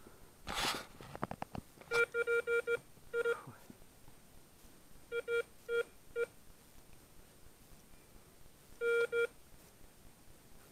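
Metal detector's target signal: a mid-pitched electronic beep repeated in short quick groups as the coil sweeps over buried metal, three bursts of beeping with pauses between. A short rustle sounds about half a second in.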